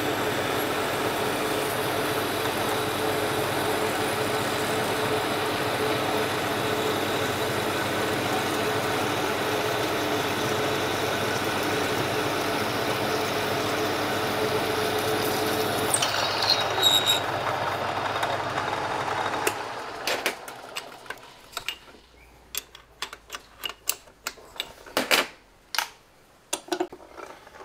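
Old metal lathe running steadily while a 31/64-inch twist drill in the tailstock bores into the spinning workpiece, with a short high squeak about two-thirds of the way through. The lathe is then switched off and runs down, followed by scattered metal clicks and knocks.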